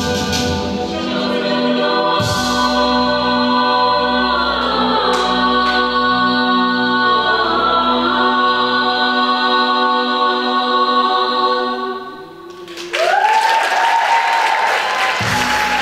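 A mixed-voice vocal ensemble with accompaniment holds a long, full chord. About thirteen seconds in, after a brief drop in loudness, one voice slides up to a high sustained note as the sound swells again.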